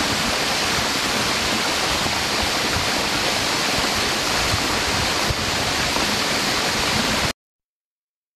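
Tall waterfall pouring down a rock face: a steady, even rush of falling water that cuts off abruptly near the end.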